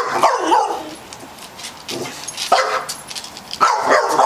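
A dog barking in short, high yips: a couple right at the start, one about two and a half seconds in, and a quick run near the end.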